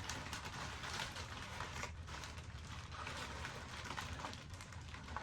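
Rustling and crinkling of packing material as a shipping package is unpacked by hand, with many small irregular clicks and crackles.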